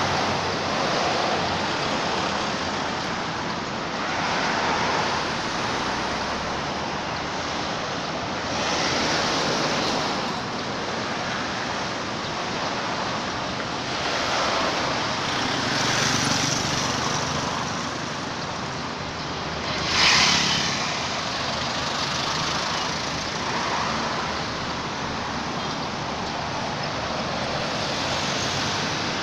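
Road traffic noise: a steady rush of passing vehicles that swells and fades every few seconds, loudest for a moment about twenty seconds in.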